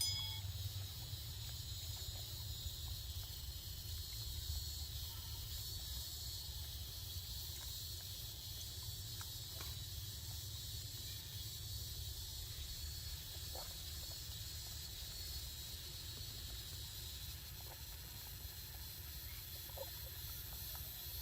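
Steady outdoor ambience: a continuous high-pitched insect drone over a low rumble, with a brief chirp right at the start.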